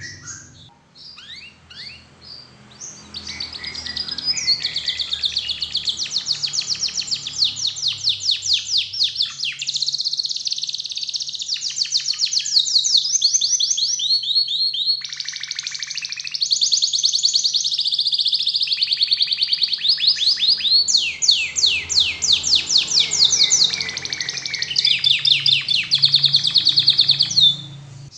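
Domestic canary singing a long song of rapid trills, each a fast run of repeated notes, switching to a new trill every second or two. It begins with a few soft broken notes, sings continuously from about three seconds in, and breaks off shortly before the end.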